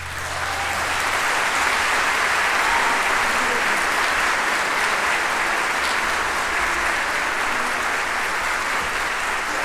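Concert-hall audience applauding after an orchestral piece ends. The applause swells over the first second and then holds steady. The low notes of the orchestra's final chord fade out under it at the start.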